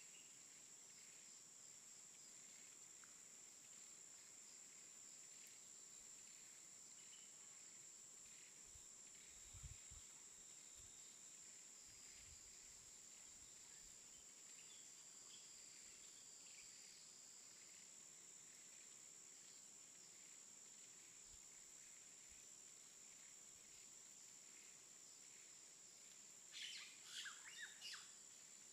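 Faint, steady high-pitched drone of insects, with scattered soft bird chirps. A soft low bump about ten seconds in, and a brief cluster of sharp, squeaky chirps near the end.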